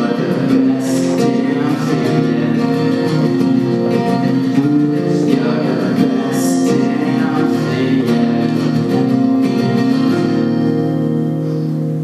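Two acoustic guitars strummed and picked while a man sings, with a chord held out near the end.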